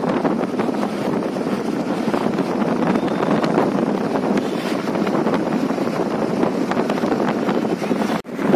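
Wind rushing over the microphone with road noise from a vehicle moving at speed, a steady loud rush that cuts out for a moment near the end.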